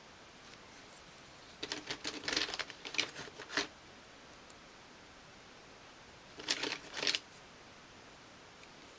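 Wooden spring clothes pegs clicking and clattering as they are clipped onto small glued wooden pieces to clamp them. Two short bursts of quick clicks, one about two seconds in and another about six and a half seconds in.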